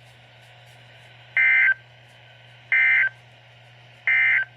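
EAS/SAME end-of-message data burst sent three times, each a short warbling digital chirp of about a third of a second with a second's pause between, over a faint steady hum from the weather radio. It marks the end of the tornado watch broadcast.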